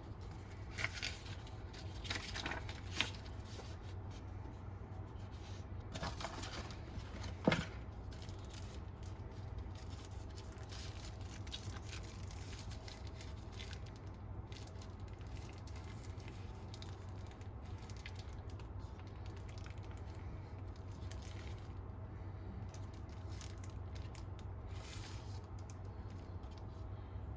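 Faint handling noises as hands work with the sunglasses and their packaging: scattered light clicks and rustles, with one sharper click about seven and a half seconds in, over a steady low hum.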